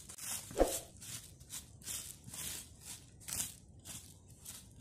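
Roasted rice grains rustling and rattling as they are handled from a steel bowl and sprinkled onto a woven bamboo tray, in a run of short hissing strokes about two or three a second, with a sharper knock about half a second in.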